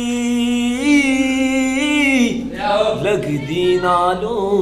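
A man singing a Punjabi naat unaccompanied: one long held note for about two seconds, then a run of shorter wavering, ornamented phrases.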